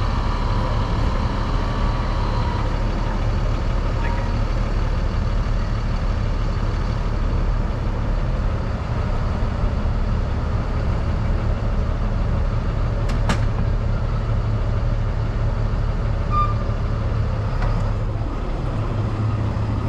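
Steady low rumble of city street traffic, with heavy vehicles running nearby and a couple of faint clicks about 13 seconds in.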